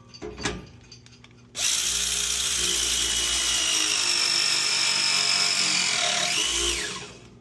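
Handheld press tool crimping a 3/4-inch copper press coupling. After a light click, the motor runs steadily for about five seconds with a high whine that sinks slightly, rises and falls in pitch near the end, then stops.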